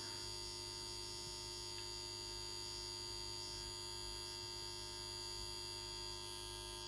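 Faint, steady electrical hum with a thin, high-pitched whine above it.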